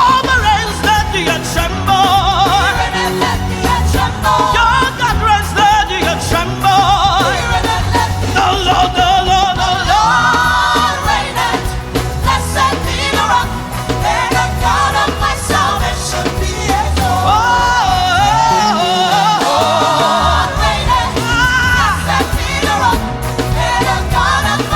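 Live contemporary gospel praise music: a singer with vibrato over a band with bass and drums, and backing voices joining in. The bass drops out briefly about two-thirds of the way through.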